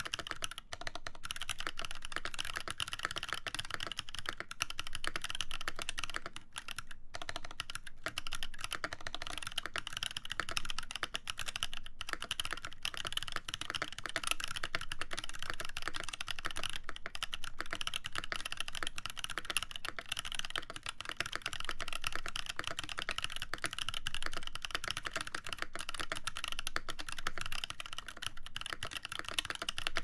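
Continuous fast typing on a Satisfaction75 R2 mechanical keyboard with a full brass plate and lubed Boba U4T tactile switches under GMK keycaps: a dense, even run of keystrokes, with a brief pause about seven seconds in.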